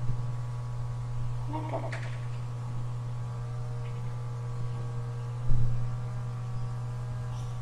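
Steady low electrical hum in the recording, with a brief vocal sound about two seconds in and a low thump a little past halfway.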